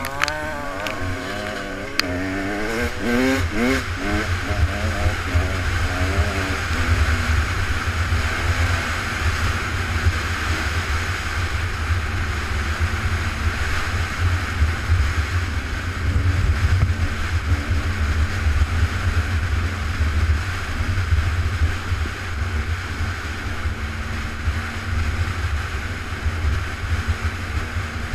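Off-road vehicle engine revving, its pitch wavering up and down for the first few seconds, then settling into a low, uneven rumble under a rushing hiss as it drives on.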